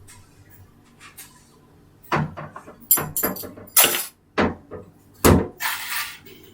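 A quick run of hard knocks and clatters, like solid objects being handled and set down, ending in a short scraping rustle.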